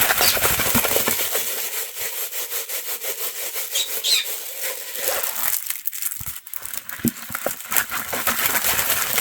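Plastic packaging of a diamond painting kit rustling, crinkling and rubbing as it is handled and unwrapped, with a couple of brief high squeaks about four seconds in.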